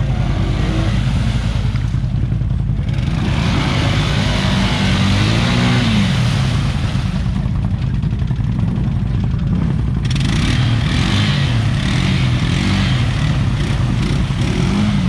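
Off-road vehicle engine running loud under changing throttle, its pitch rising and falling several times. A rushing hiss rides over it in two long stretches.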